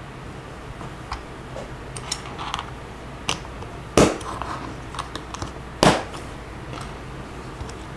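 Plastic Lego bricks being handled and pressed together: scattered light clicks, with two louder knocks about four and six seconds in.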